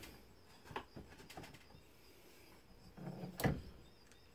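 Faint clicks of brass 9mm cases and bullets being handled at a single-stage reloading press, then a short low sound and one sharp click about three and a half seconds in as a piece is set into the press.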